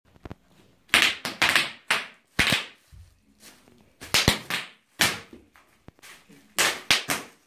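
Bubble wrap crackling and popping under bare feet as it is stepped and stamped on. It comes in irregular bursts about every half second, some with a sharp pop.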